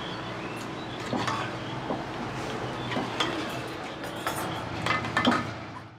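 A metal ladle clinking and scraping against a metal cooking pot as chicken curry is stirred, with several irregular clinks, the loudest near the end, over a steady low hum. The sound fades out at the very end.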